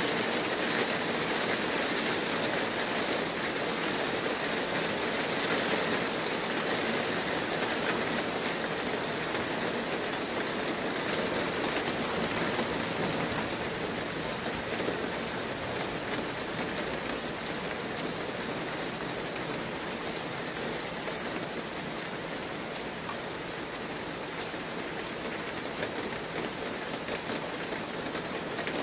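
Heavy rain falling steadily, an even hiss with scattered faint drop ticks, easing slightly about halfway through.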